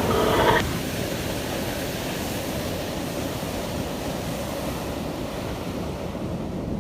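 A high screech of several pitches, as from an icebreaking ship's hull, cuts off abruptly about half a second in. A steady rushing noise of sea and wind with a low rumble follows as the ship moves through the Arctic Ocean.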